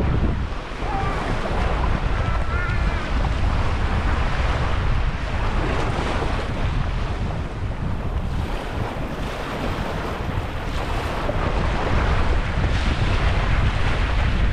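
Small waves washing and breaking on a sandy shore, with wind buffeting the microphone in a steady low rumble.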